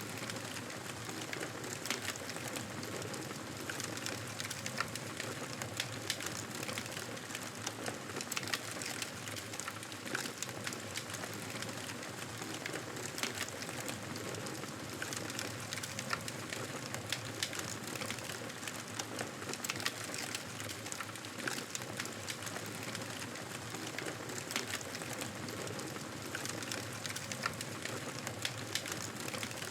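Wood fire in a fireplace burning with a steady hiss and frequent irregular crackles and pops.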